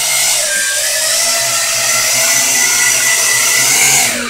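Small battery-powered quadcopter's electric motors and propellers whining steadily as it flies, the pitch wavering slightly with the throttle, then dropping sharply near the end.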